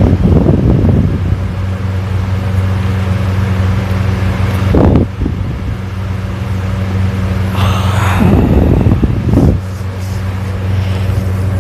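A person snoring loudly: three rough, rattling snores about four seconds apart, the last one longer, over a steady low hum.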